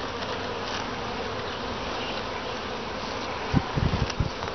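Honeybee colony humming steadily in an opened long frame hive, bees flying around it. A few low knocks come about three and a half seconds in as a frame is handled and lifted out.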